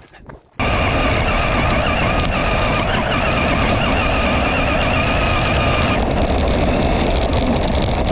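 A vehicle running steadily with its engine and road noise, cutting in abruptly about half a second in, with a wavering high tone over it that drops out about six seconds in.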